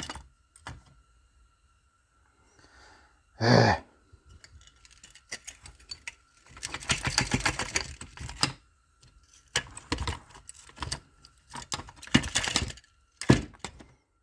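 Metal parts of a tractor hand-clutch assembly clicking and rattling as it is worked apart by hand, in several bursts of rapid clicks, with one louder, half-second knock about three and a half seconds in.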